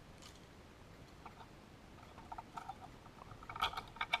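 Faint, scattered small clicks and ticks of needle-nose pliers and 22-gauge coil wire being worked around the posts of a rebuildable atomizer deck. The clicks come closer together and sharper near the end.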